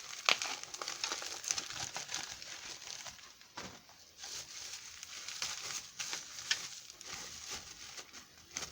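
Plastic packing material crinkling and crackling in irregular bursts as an item is unwrapped by hand.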